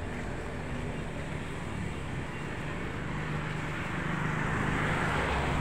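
Street traffic noise, with a motor vehicle passing close that grows louder over the last second or two.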